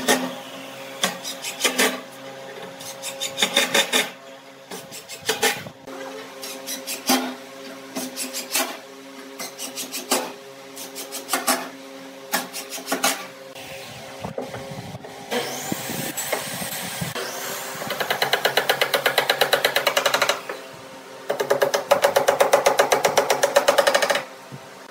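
Cordless impact driver hammering screws into pine boards, in short bursts of rapid impacts one after another. Later come two longer runs of several seconds each of continuous hammering.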